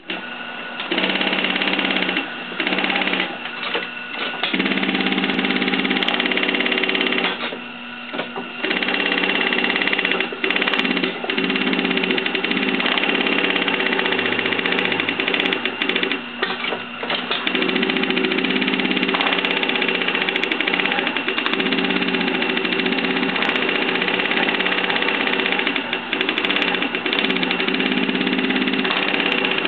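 Vintage Union Special 51500 industrial chainstitch sewing machine running at speed, stitching denim with a rapid, steady mechanical chatter. It stops briefly several times as the fabric is turned, the longest pause about eight seconds in.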